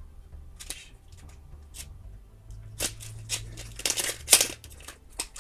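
Product packaging being handled: a string of short rustles, scrapes and small clicks, with a louder crinkling stretch about four seconds in.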